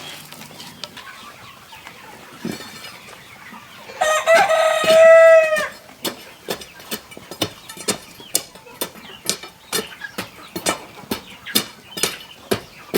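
A rooster crowing once, about four seconds in, with a long pitched call that falls away at the end. It is followed by a steady run of sharp clicks or taps, about two a second.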